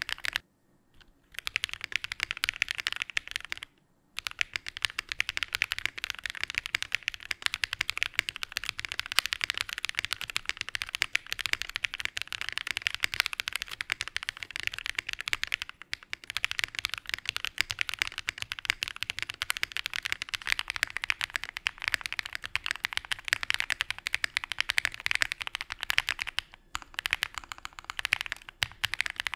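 Fast continuous typing on an AS65 prototype 65% mechanical keyboard with lubed Aniya R2 switches and GMK Wasabi keycaps, giving a dense stream of keystroke clacks. It stops briefly about a second in, again around the fourth second, and twice later on.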